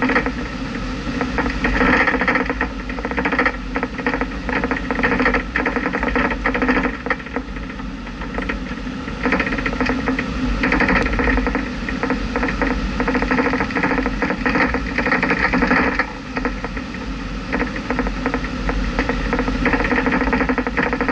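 A vehicle driving along a winding road. The engine and road noise run continuously, broken by many small rattling clicks.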